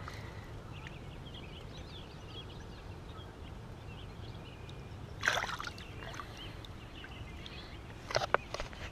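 Water lapping and trickling around a bass held by the lip at the side of a boat, with one brief splash about five seconds in as it is released, and a few short knocks near the end.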